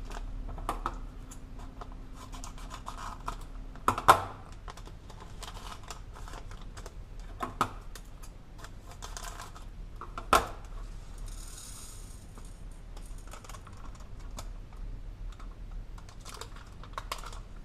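Hands handling a seed packet on a table: scattered small clicks, scratches and rustles, with a few louder knocks about 4, 7½ and 10 seconds in.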